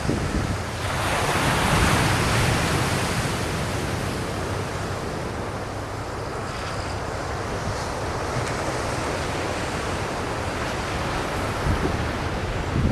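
Ocean surf breaking and washing up the beach, a steady rushing wash that swells loudest about one to three seconds in, with wind rumbling on the microphone.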